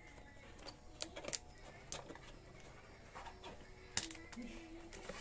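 Small cardboard watch box and its paper packaging handled by hand: a few sharp clicks and taps, the loudest about a second in, twice more soon after and again near four seconds, over faint background music.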